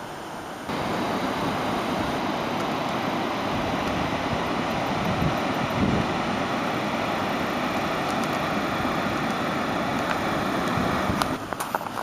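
Steady rushing of water pouring over a low river dam's spillway, cutting in suddenly about a second in. Near the end it gives way to a run of clicks and footsteps.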